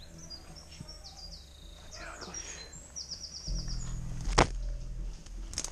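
Small woodland birds chirping, with a quick run of repeated notes about three seconds in. A single sharp crack from an airsoft replica firing comes a little after four seconds.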